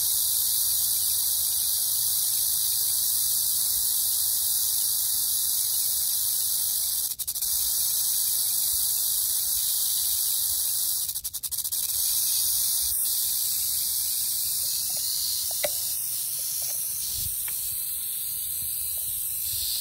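Rattlesnake buzzing its tail rattle in a steady, high hiss, the snake's defensive warning, breaking off briefly twice.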